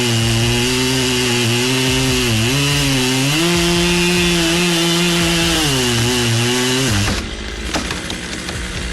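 Chainsaw engine running hard at high speed. Its pitch steps up about three and a half seconds in, sags again near six seconds, and cuts off sharply about seven seconds in.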